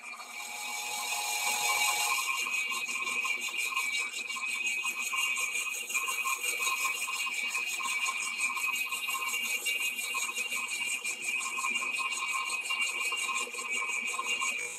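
Big Monarch engine lathe taking a skim cut on a trommel trunnion wheel with a new indexable insert: a steady cutting noise with a rapid rattle of broken chips. It builds up over the first two seconds as the cut gets going.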